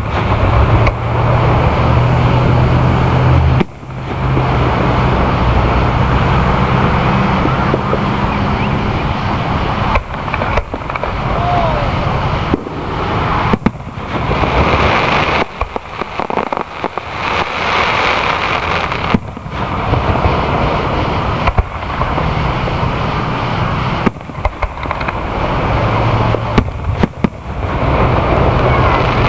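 Aerial firework shells bursting one after another, a continuous loud din of booms and crackling broken by several abrupt short gaps. A steady low hum runs under the first few seconds.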